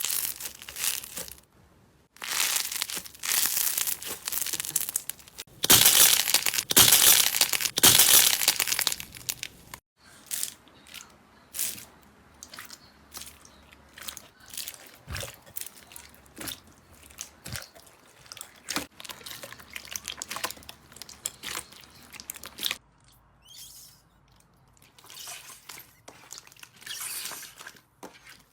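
Slime being squeezed and stretched by hand, crackling and crunching. It is loud and dense for the first ten seconds, then gives way to quieter, separate sticky clicks and pops.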